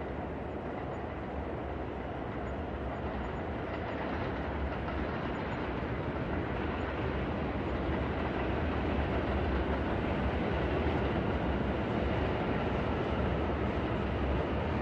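New York subway train rumbling through a station, a steady roar with a deep low rumble that grows gradually louder over the first several seconds and then holds.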